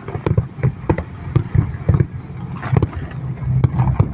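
Fireworks display: a rapid, irregular string of sharp bangs and crackles, a few each second, over a low continuous rumble.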